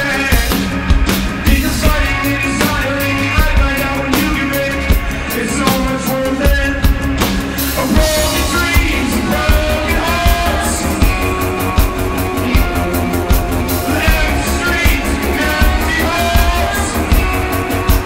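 Live rock band performing a song: a male lead singer over a steady drum-kit beat and electric guitar.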